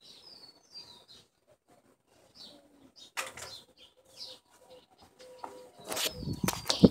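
Rustling, rubbing and knocking of a phone being handled with its lens covered, getting much louder about six seconds in as it is brought out. A few short, high bird chirps that glide downward come through in the first second or so.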